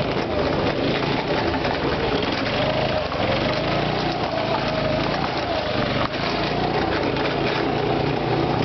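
Go-kart's small engine running under way, its pitch rising and falling as the throttle and speed change, with a brief dip about six seconds in, over a rattly noise of the kart bouncing along.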